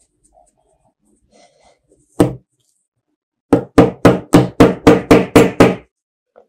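A single knock, then a quick run of about nine knocks on a hard surface, about four a second.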